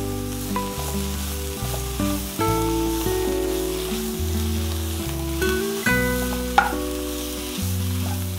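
Spinach leaves and chopped onions sizzling as they are sautéed in butter in a frying pan, stirred with a spatula. Background music of held chords, with a bass note that changes about once a second, plays under the sizzling.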